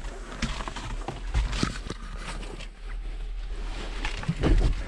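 Someone climbing into a parked tractor's cab: irregular boot knocks and scuffs on the metal steps and cab floor, with clothing rustle and a heavier thump near the end.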